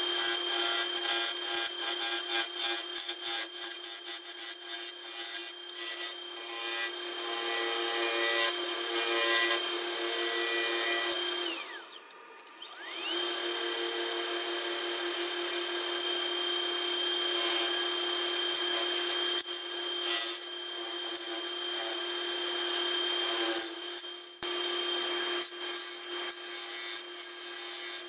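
A bowl gouge cuts the inside of a spinning Brown Mallee burl and epoxy resin blank on a wood lathe, making a steady dense scraping crackle over the lathe motor's even whine. About twelve seconds in, the lathe winds down to a stop and then spins back up, and the cutting resumes.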